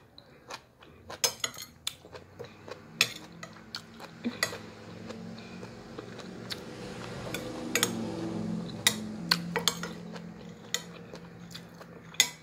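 Metal spoon clinking and scraping against a plate while scooping up leftover chickpeas and broth: a string of sharp clinks, irregularly spaced.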